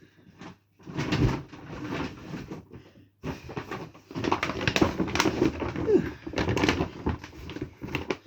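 Rustling and clattering as shopping is rummaged through and lifted out of bags, with many short knocks and crinkles.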